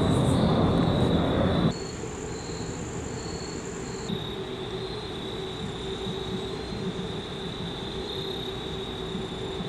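Insects trilling steadily in a high pitch. For the first second and a half a loud low rumble covers them, and it cuts off abruptly.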